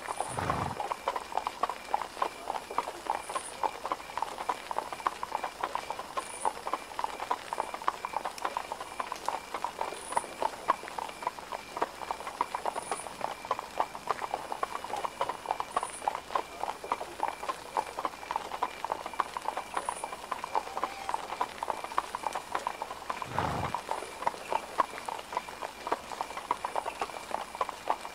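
Horse hooves clip-clopping steadily on a hard surface, a dense, irregular run of clicks, as of horse-drawn carriages moving. Two low thuds stand out, one just after the start and one about four-fifths of the way through.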